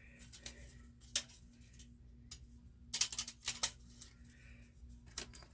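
Scattered light clicks and taps of small metal hand tools on aluminium rib parts during hand-riveting, with a quick run of several taps about three seconds in. A faint steady hum runs underneath.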